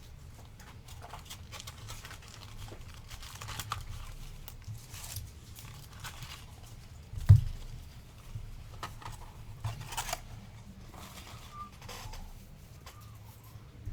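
Trading card packs and cards being handled on a table: scattered rustling, sliding and crinkling of wrappers, with one sharp knock about seven seconds in.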